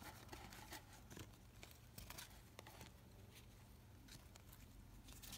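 Faint clicks and flicks of a stack of Upper Deck basketball trading cards being thumbed through by hand, one card at a time, over a low steady hum.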